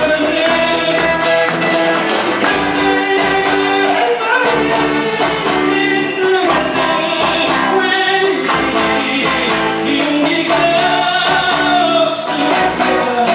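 Live band playing a pop-rock song, with guitars, bass, drums and a sung melody.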